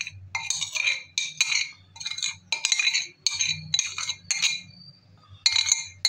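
Mustard oil poured from a plastic bottle into a non-stick frying pan of ground onion and seeds, heard as a quick run of sharp clinks and splashes, about two a second, with a short pause near the end.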